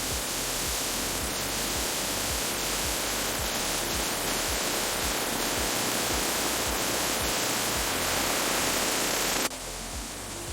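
Steady hiss of a pressure washer spraying, cutting off suddenly near the end, over background music with a steady beat.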